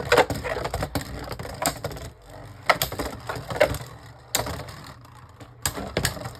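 Beyblade Burst spinning tops battling in a plastic stadium: irregular sharp clacks as they collide.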